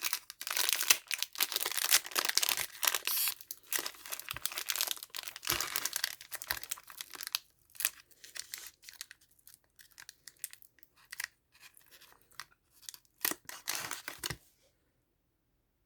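Trading-card pack wrapper crinkling and tearing as it is opened. The crackling is dense for the first seven seconds or so, then thins to scattered crinkles and stops about fourteen and a half seconds in.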